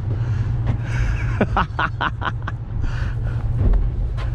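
Steady low drone of a fishing party boat's engine, with a short run of laughter, about six quick pulses, near the middle.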